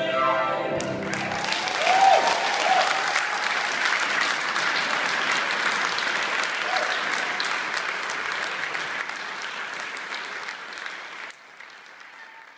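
Audience applauding after the choir's held final chord dies away about a second in, with a few voices calling out early on in the clapping. The applause slowly thins and drops away sharply near the end.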